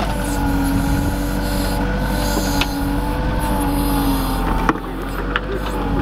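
Kubota compact tractor with a backhoe attachment at work: the diesel engine runs at a steady speed with a steady whine, dipping briefly a little before the end, with a few short knocks as the bucket digs.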